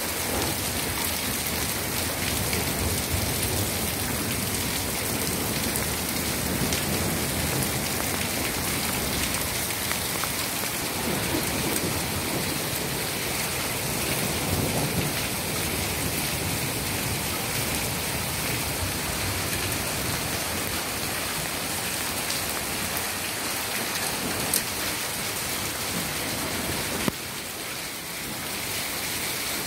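Hail mixed with rain falling steadily onto a cobbled street, a dense, even hiss that softens briefly near the end.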